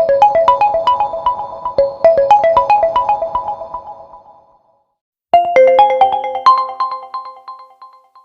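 OPPO A1K phone ringtones: a melody of short, quickly decaying notes fades out about four seconds in. After about a second of silence, the next ringtone's melody starts and fades in turn.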